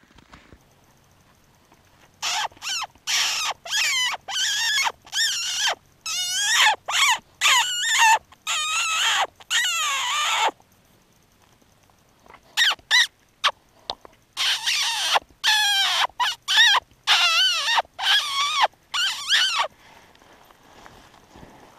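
Predator squeak call imitating a distressed rodent: a run of shrill, wavering squeals, one after another, then a short pause and a second run.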